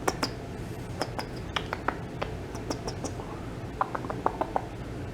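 Scattered light clicks and taps, with a quick run of about six ticks near the end, over faint room noise.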